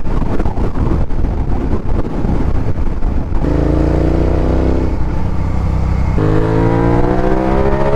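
Suzuki SV650S V-twin engine accelerating, its note rising steadily from about three and a half seconds in, dropping at a gear change about six seconds in, then rising again. A rushing noise dominates before the engine note comes through.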